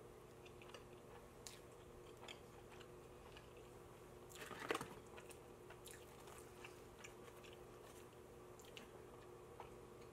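Faint close-miked chewing with small mouth clicks and smacks: a person eating Little Caesars pizza and breadsticks. One brief louder rustle comes about halfway through.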